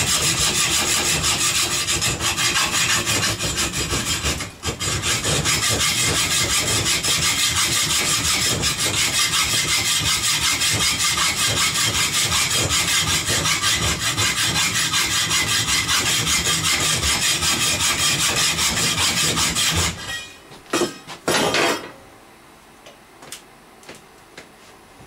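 Fast rasping strokes of hand abrading on a bent steel tool-rest rod, running on almost without a break with one short pause about four and a half seconds in. The strokes stop about twenty seconds in; a few sharp knocks follow, then only small clicks.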